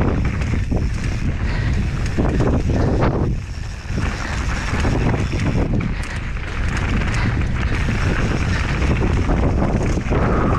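Wind buffeting the microphone of a rider's camera on a mountain bike moving at speed: a loud, rough rush that is heaviest in the low end and rises and falls, with a few brief knocks.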